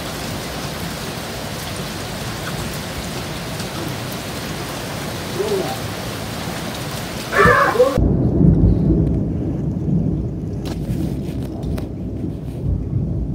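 Heavy rain falling in a steady hiss, then about seven seconds in a sudden loud burst followed by a long low rumble of thunder, with the rain's hiss dropping away.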